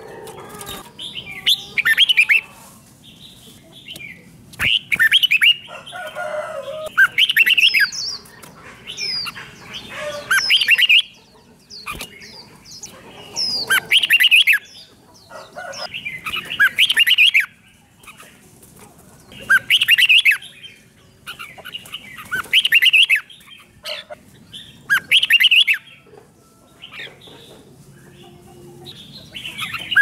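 Red-whiskered bulbul singing short, bright, chirpy song phrases over and over, one every two to three seconds, with now and then a flutter of wings.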